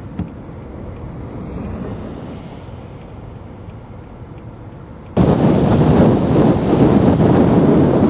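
A car passing on a snow-covered road, a low rumble of engine and tyres on snow. About five seconds in it cuts abruptly to loud wind buffeting the microphone.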